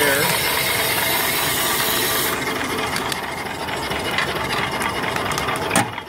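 Wood fire in a small steam boiler's open firebox, rushing hard under the blower's forced draft, while the boiler's steam engine runs with a steady light clicking. The hiss drops noticeably after about two seconds.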